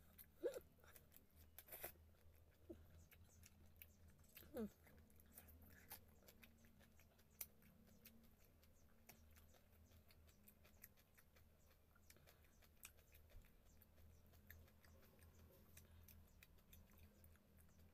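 Faint, close chewing and scattered mouth clicks of a person eating by hand, with soft finger sounds as fish is picked apart, over a low steady room hum. The whole is near silent.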